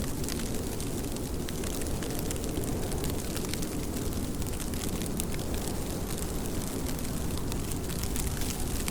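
Steady rain, with many distinct drop hits crackling over an even wash and a low rumble underneath.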